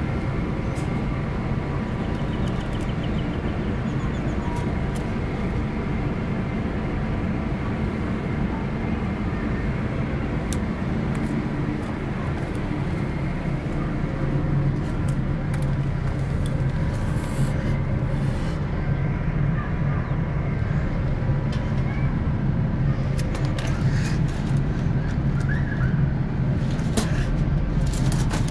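Steady, loud machinery drone: a low hum with several thin whining tones held above it. Short clicks now and then, heavier near the end.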